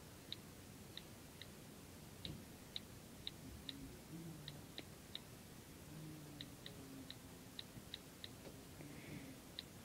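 Faint, crisp key clicks from an iPod's on-screen keyboard as someone types, coming at an irregular pace of one or two a second with short pauses.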